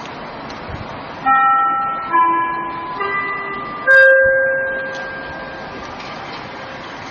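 Municipal disaster-prevention radio loudspeaker playing its four-note chime, the notes climbing in pitch about a second apart and the last, loudest one ringing out over a second or two: the chime that opens a public announcement. A steady background rush runs underneath.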